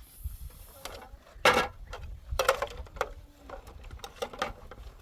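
A few irregular knocks and clatters, the loudest about a second and a half in.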